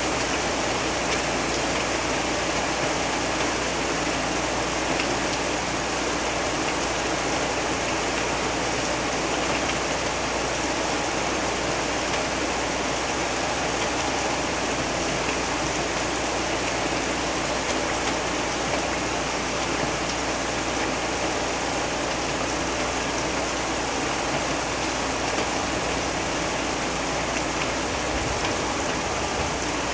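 Steady heavy rain, an even hiss with no breaks or single drops standing out.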